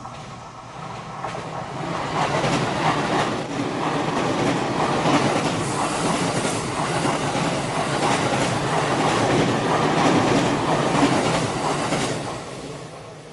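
Electric train passing close by on a curve, its wheels clacking over rail joints in a repeated rhythm. It builds to loud within about two seconds and fades away near the end.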